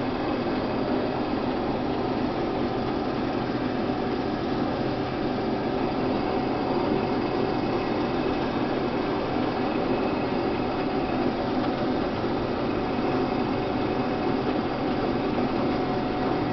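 Case IH 1680 rotary combine running steadily while harvesting wheat: an even mechanical drone with several held tones and no change in pace.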